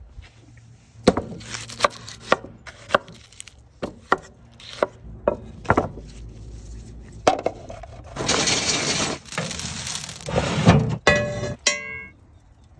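Cooking prep sounds: about a dozen sharp knocks and clicks of utensils and food on wood and plates. Then a couple of seconds of steady hiss, and a few short ringing tones near the end.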